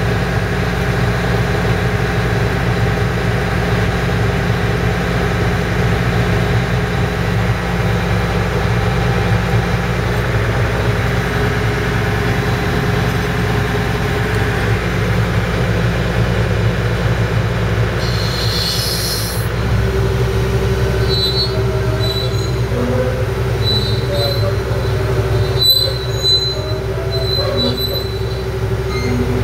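John Deere excavator's diesel engine running steadily while the tracked machine moves, with metallic squealing from the crawler tracks. A short hiss comes about eighteen seconds in, and just after it the engine note shifts and a steady higher tone joins, with scattered squeaks.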